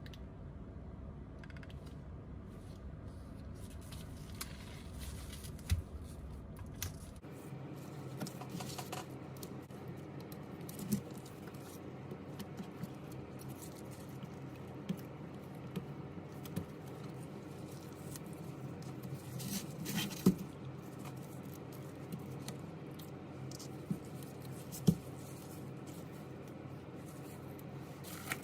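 Scattered small clicks and light scratching of hand tools working on a smartphone, over a faint steady background hum, with a couple of sharper clicks in the second half.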